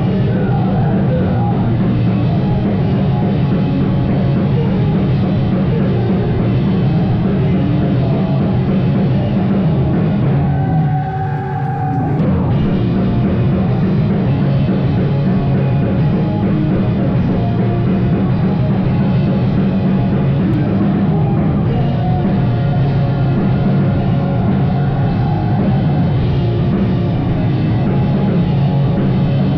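A band playing rock music live and loud. About ten seconds in, the bass and drums drop out for a second or so, leaving a few held notes, then the full band comes back in.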